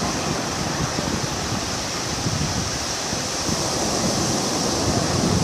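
Ocean surf breaking and washing up a sandy beach, a steady rush of water, with wind buffeting the microphone.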